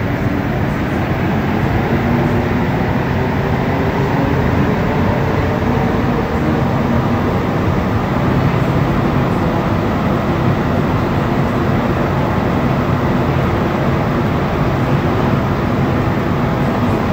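Rubber-tyred Montréal Metro Azur (MPM-10) train running between stations, heard from inside the car: a loud, steady rumble of tyres and running gear with faint steady tones in it.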